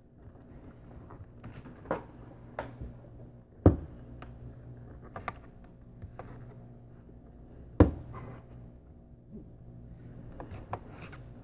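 Two iPhone 7 Plus phones handled on a table: scattered light taps and clicks as they are picked up, moved and touched, with two sharper knocks as a phone is set down, about four seconds in and again about eight seconds in, over a faint low hum.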